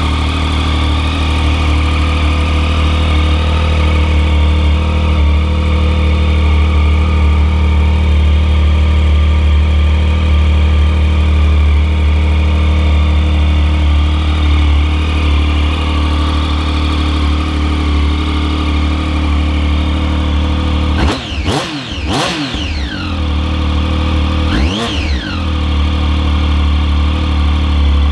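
2011 Triumph Street Triple 675's inline three-cylinder engine idling steadily. About three-quarters of the way through, a few quick throttle blips make the revs rise and fall, with one more blip shortly after before it settles back to idle.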